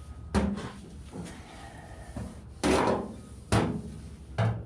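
Body hammer striking a steel car body panel against a dolly, four separate blows. The blows are shrinking a heated spot to flatten a warped, oil-canned panel.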